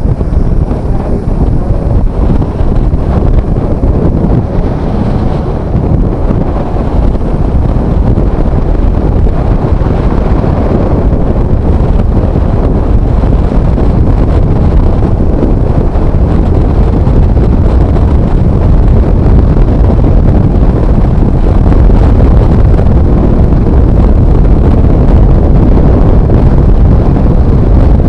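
Loud wind rushing and buffeting over the microphone of a rider on a Bajaj Dominar 400 motorcycle at expressway speed, with road and motorcycle noise underneath and no distinct engine note.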